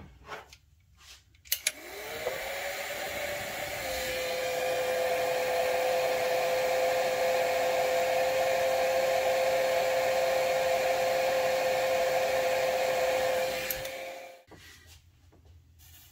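Handheld heat gun switched on with a click, its fan motor spinning up to a steady whine over the rush of blown air as it shrinks heat-shrink tubing over soldered LED leads. It is switched off near the end and winds down.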